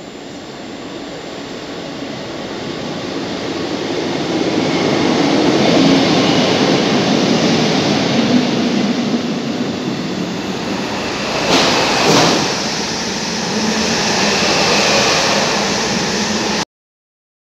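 Class 153 single-car diesel unit running through the station at speed. Its engine and wheels-on-rail noise swell as it approaches, stay loud as it passes, with two sharp knocks about eleven and twelve seconds in, then carry on until the sound cuts off suddenly near the end.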